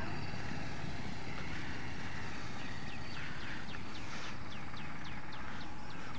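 Steady, even rushing noise of a moving vehicle on the road. From about two and a half seconds in, a run of short chirps falls in pitch, about three a second.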